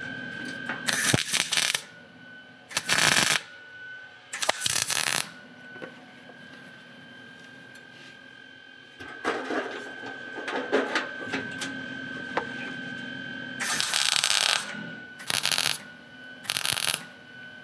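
MIG welder tack-welding a butt seam in sheet-steel hood panels. It makes six short welding bursts, each under a second: three in the first five seconds and three near the end, with a quieter gap between them.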